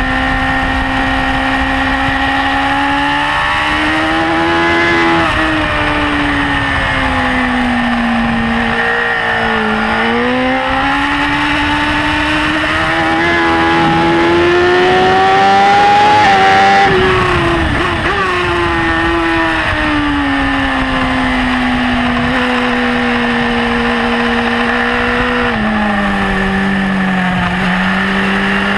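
BMW S1000RR's inline-four engine running hard at high revs on track, its pitch climbing under acceleration and dropping at shifts and when rolling off for corners, over wind rush. It is loudest and highest just past halfway, then the pitch falls sharply.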